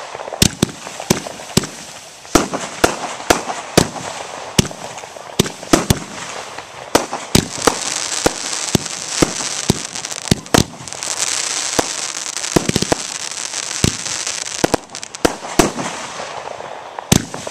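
Aerial fireworks bursting in quick, irregular succession: a string of sharp bangs over a steady hissing crackle that swells through the middle and thins out near the end.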